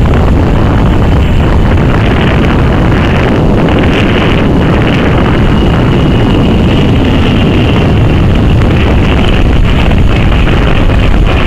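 A Boeing 757's twin jet engines passing low overhead: a very loud, steady jet roar with wind on the microphone.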